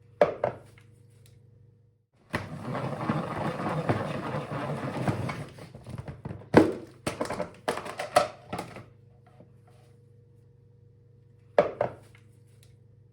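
Handling noise: a few seconds of crackly rustling, then a run of sharp knocks and clicks, with a faint low steady hum in the quiet stretches.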